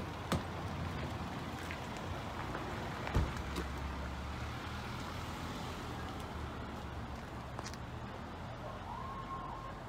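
Steady low outdoor rumble and hiss, with two brief knocks: a small one just after the start and a louder one about three seconds in.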